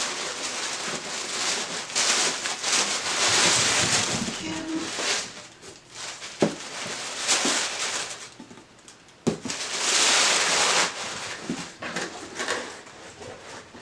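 Packaging being handled and torn open to unwrap books: long stretches of rustling and crinkling, with two sharp knocks partway through.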